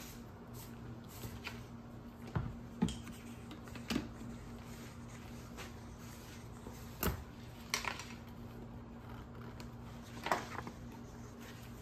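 A handful of light clicks and knocks, spaced a second or more apart, as a plastic mayonnaise jar is handled and its screw lid is twisted off. A steady low hum runs underneath.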